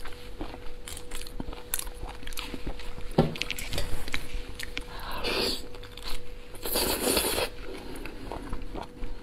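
Cooked lobster shell being cracked and pulled apart by hand, with a run of crackles and crunches and two longer noisy bursts a little past halfway. A faint steady hum underneath.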